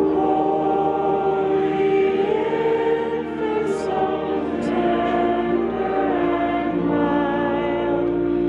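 Music: a choir singing slow chords of long held notes.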